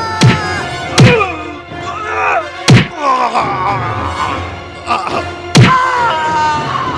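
Background music with four sharp thuds struck through it, spread across several seconds.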